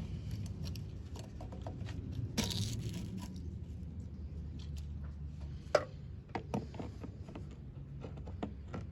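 Scattered clicks and knocks of hand work on small-engine parts, with a short scrape about two and a half seconds in and a sharp click near the middle, over a low steady rumble.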